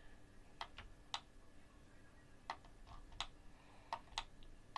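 Irregular clicks from a computer mouse and keyboard, about ten in a few seconds, over a faint steady hum.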